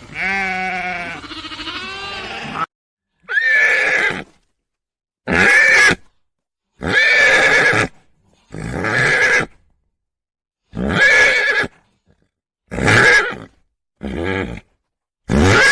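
A wavering bleat, then a series of eight short, harsh calls from a farm animal, each about a second long, with a second or so of silence between them.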